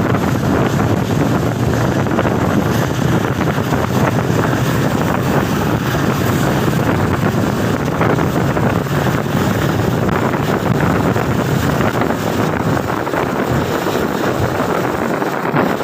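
Train running at speed behind an EMD diesel locomotive: a steady low rumble and hum with wind rushing over the microphone.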